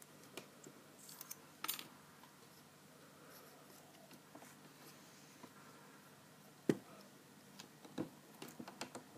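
Light metallic clicks and taps from handling a disassembled padlock's lock core and its small pins, a sharper knock about two-thirds of the way through and a quick run of clicks near the end.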